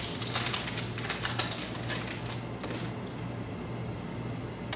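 A baseball card pack's wrapper being torn open and crinkled, a quick run of crackles and rustles that thins out a little past halfway, over a steady low hum.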